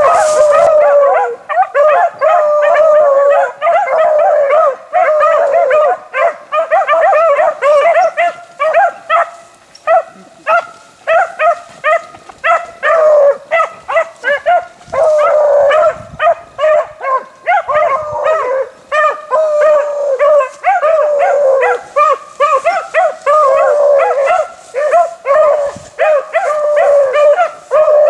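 A pack of beagles baying and howling with no letup, several voices overlapping, as the hounds run a rabbit's scent trail.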